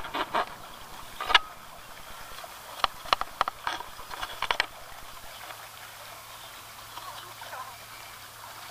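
Sharp clicks and taps of a white cockatoo's beak pecking and biting at the camera against the aviary's wire mesh. They come in scattered groups: a few at the start, one a little later, and a quick run in the middle.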